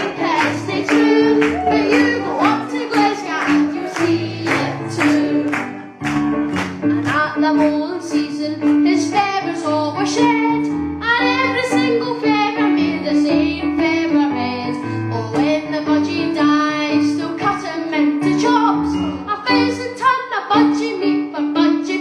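A young man singing into a microphone over instrumental accompaniment with a steady beat.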